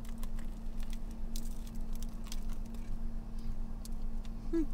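A person biting into and chewing a tuna sub on a soft bread roll: irregular small wet mouth clicks and squishes, over a steady low hum. A short hummed "mm" near the end.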